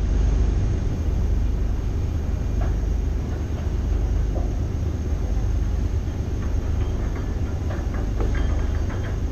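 A roll-on/roll-off car ferry underway, its engines giving a steady low rumble.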